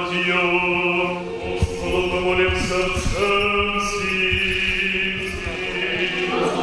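Several voices singing Orthodox church chant in harmony, holding long chords that shift from one to the next a few times. A brief soft knock comes about one and a half seconds in.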